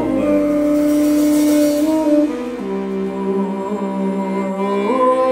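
Small acoustic band with accordion and fiddle playing slow music in long held chords, the chord changing about two and a half seconds in and again near the end, where the notes slide upward.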